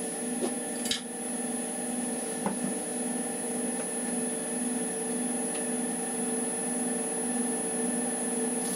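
Wood lathe running steadily with a humming motor, without cutting, with a couple of light clicks as a tool is handled.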